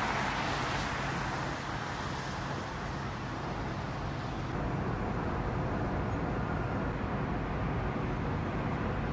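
Steady city street traffic noise. It is louder at the very start and eases off over the first couple of seconds.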